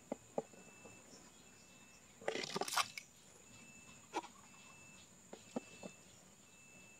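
A small plastic toy elephant slides down a sloping board and drops into pond water: a short rough scrape-and-splash about two seconds in, the loudest sound. A few light taps and clicks from the toy and handling come before and after, over a faint steady high insect hum.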